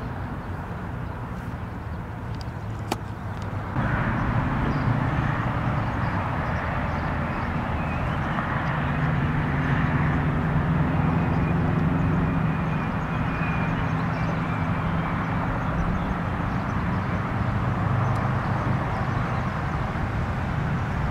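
An engine running steadily, growing louder about four seconds in, over a constant hiss.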